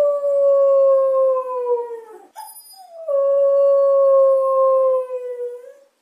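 Two long, dog-like howls, each sliding slowly down in pitch, with a short break between them a little past two seconds in.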